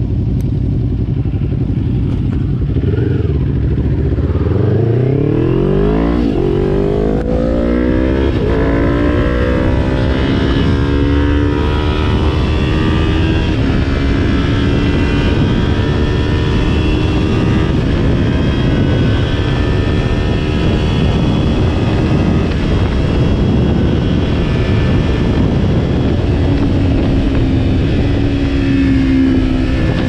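2020 Kawasaki Ninja 400's parallel-twin engine idling, then revving up as the bike pulls away about four seconds in, its note rising through the first gears. It then runs at a steady cruising speed under a rush of wind noise.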